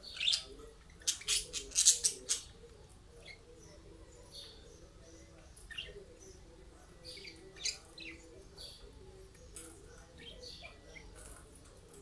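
Budgerigars chirping: a quick run of loud, sharp chirps in the first couple of seconds, then scattered softer chirps.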